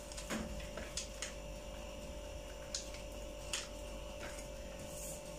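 Faint rustles and a few light taps from a small paper sachet being handled and set down, over a faint steady hum.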